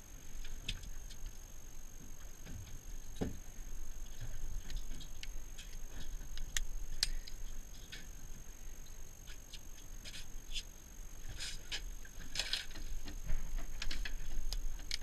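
Light, scattered metallic clicks and clinks as gloved hands handle a topwater popping lure and its hooks, over a constant low rumble of wind and boat noise.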